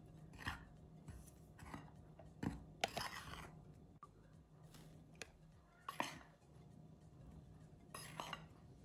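A metal spoon clinking and scraping against bowls as flour is scooped and tipped into cake batter: scattered light clinks and knocks, a cluster of them about three seconds in and another near the end.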